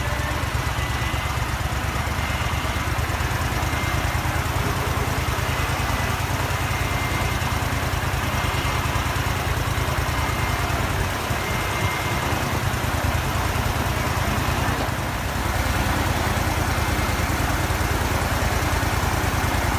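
Gas-engine wind machine, a large fan driven by a small Kohler engine, running steadily: engine chugging under a broad rush of moving air. It grows slightly louder in the last few seconds.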